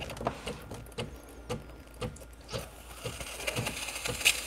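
Breville Barista Express espresso machine ticking about four times a second, then its steam wand opens about three seconds in and a hiss builds.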